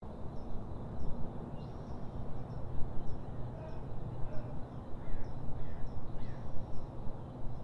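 Birds calling outdoors: short high chirps repeat about once or twice a second, with a few lower falling calls in the middle, over a steady low rumble.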